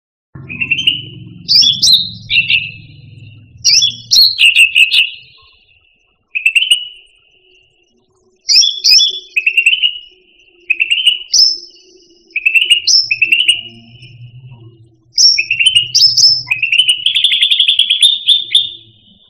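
Cucak rante singing: short, loud phrases of sharp whistled chirps with upward flicks, repeated after brief pauses, and near the end a longer, buzzier run of notes.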